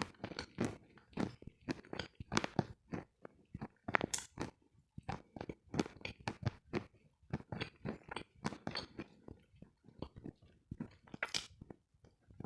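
Crunchy food being chewed: quick, irregular crunches, several a second.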